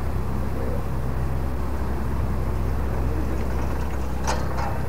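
A steady low machine hum, like a running engine, with a few short, sharp clicks near the end.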